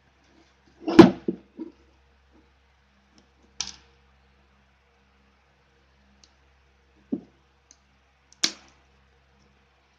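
Cardboard smartphone box being handled on a table: four separate knocks and taps. The loudest, a fuller knock, comes about a second in, and shorter, sharper clicks follow.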